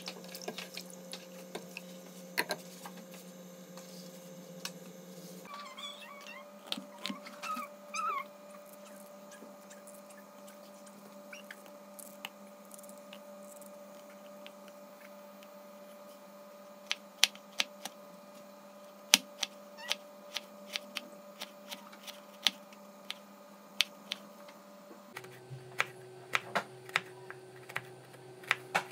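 Kitchen knife cutting carrots into sticks on a plastic cutting board: sharp irregular knocks of the blade against the board, coming quicker near the end, over a steady low hum. A brief wavering squeal about six to eight seconds in.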